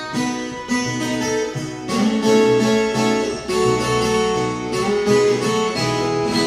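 Viola caipira, the ten-string Brazilian guitar with paired courses, tuned to cebolão E, playing a picked instrumental solo: a continuous run of melody notes and double stops with a bright, jangling ring.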